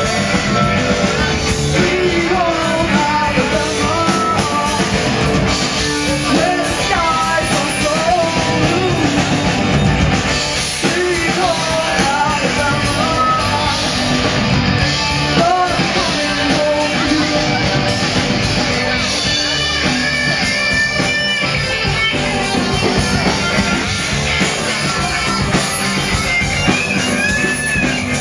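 Live rock band playing, with a male lead singer over electric guitar and a full band backing.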